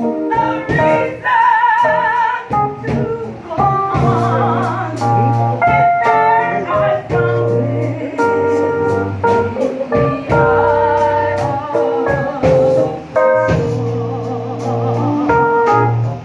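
Live gospel song: a woman sings a held, wavering melody over a band of keyboard, bass notes and drums.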